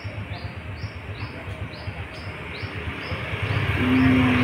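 High, evenly repeated chirps, about two and a half a second, go on throughout. From about three seconds in, a road vehicle approaches and grows louder, with a short steady tone just before the end.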